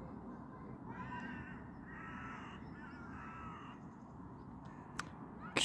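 An animal calling three times, each call about half a second long and about a second apart, followed by a single sharp click near the end.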